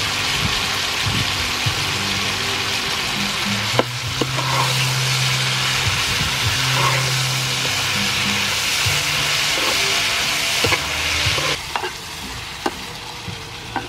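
Clams and vegetables sizzling in a hot frying pan while a spatula stirs them, with a few sharp knocks of the spatula against the pan. The sizzle quietens near the end.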